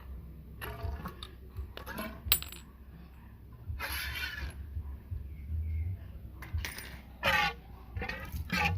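Metal clinking and rattling from handling motorcycle front fork parts and tools: a few separate knocks and clatters, with one sharp clink about two seconds in.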